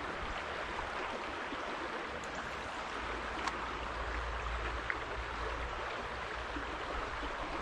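Small creek flowing steadily, with a couple of faint clicks.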